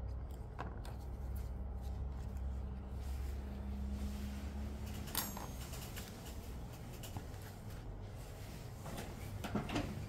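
Faint clicks and scrapes of a plastic pick and a phone being handled during an iPhone screen removal, over a steady low hum, with a sharper click about halfway through and a few more short knocks near the end.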